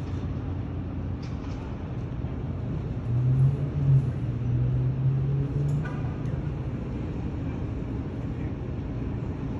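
Steady low rumble of a ship docking, with a deep drone that comes in about three seconds in, holds for nearly three seconds and steps down slightly in pitch partway.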